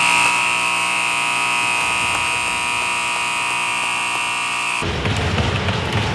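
Ice rink scoreboard horn sounding one steady, loud blast of about five seconds, then cutting off sharply.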